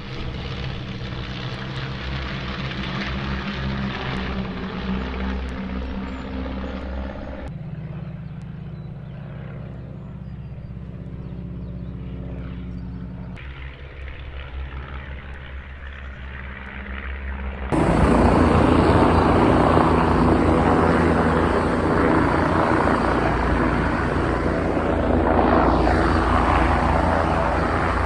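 Aircraft engine running steadily, in several pieces that cut abruptly to a different sound about 7 s, 13 s and 18 s in. It is loudest from about 18 seconds on.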